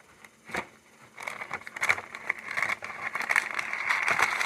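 Plastic packaging crinkling and rustling as it is handled, starting about a second in after a single click and growing louder.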